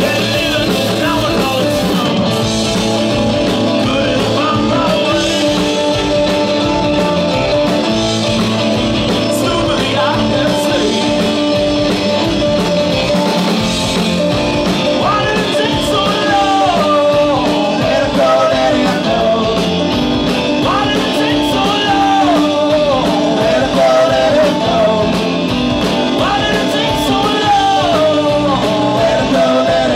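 Live rock band playing: electric guitar, bass guitar and drum kit with an acoustic string instrument, and a man singing lead, his voice clearest in the second half.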